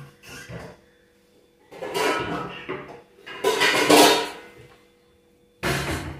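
Kitchen clatter of pots and fittings being handled and knocked in three bursts, the loudest about four seconds in, over a faint steady hum.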